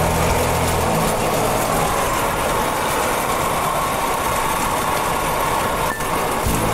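Small vehicle engine running steadily while moving, heard from on board beneath its canopy.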